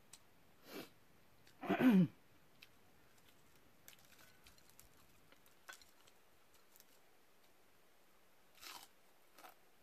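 A person eating: a short wordless voiced sound falling in pitch about two seconds in, faint clicks of food being picked from a plate, then chewing and biting near the end.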